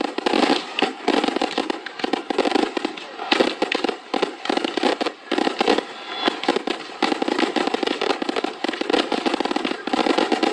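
Fireworks bursting in quick succession: a dense, continuous run of bangs and crackling with no pause.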